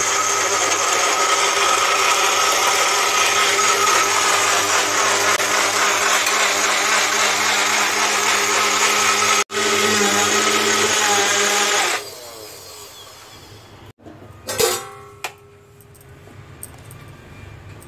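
Personal bullet-style blender grinding tomatoes to a fine paste. The motor runs steadily with a momentary break about nine seconds in, and cuts off after about twelve seconds. A short clatter follows a couple of seconds later.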